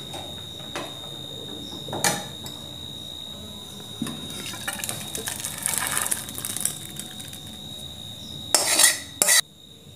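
A steel spoon clinks and scrapes against a steel pan as thickened milk pudding is poured and scraped out into a steel bowl. Separate clinks and knocks come first, and the loudest scraping comes near the end before the sound cuts off abruptly.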